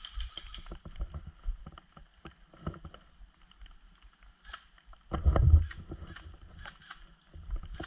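Footsteps and rustling through dry leaves and undergrowth, with irregular clicks and knocks of gear and the rifle-mounted camera being handled. About five seconds in there is a louder, deeper rustling bump as the player pushes into the brush.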